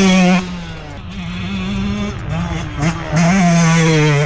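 125cc two-stroke dirt bike engine revving hard on the throttle. It is held high at the start, drops off after about half a second and wavers lower, then climbs back and is held high again for about a second near the end.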